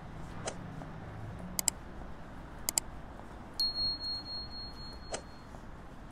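Sharp clicks, two of them in close pairs about a second apart, then a high steady electronic beep of about two seconds, over a low street hum.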